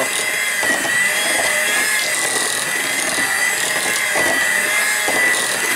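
Electric hand mixer running steadily at speed, its beaters whipping boiled potatoes in a pot, a constant wavering motor whine over a rough churning noise. A couple of soft knocks come near the end.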